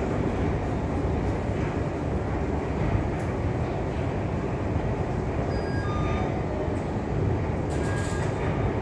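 Steady low rumble of a metro train, with a few faint short high-pitched tones about two-thirds of the way through.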